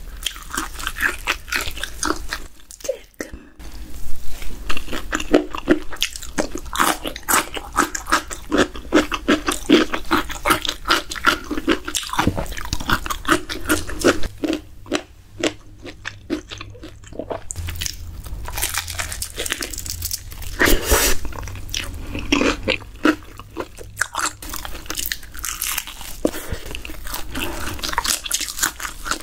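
Close-miked eating of crispy fried food: crunchy bites and chewing, with a short pause about three seconds in.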